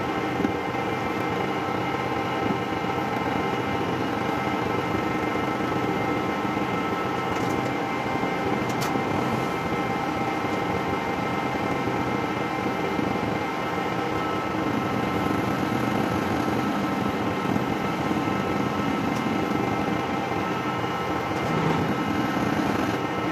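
Metal lathe running with its cutting tool turning down a weld-built-up steel stub axle, machining the worn bearing seat back to the bearing-fit size. A steady machine whir with several steady whining tones over it.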